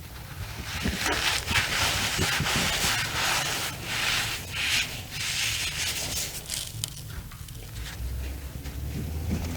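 Soft reformed cornstarch chunks being crushed and rubbed in the hand: a powdery, gritty crunching that comes in repeated swells, strongest in the first half and softer near the end.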